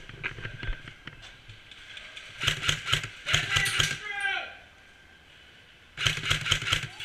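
Bursts of airsoft gunfire: quick strings of sharp clicking shots, one about two and a half seconds in and another near the end. Between them comes a short falling voice.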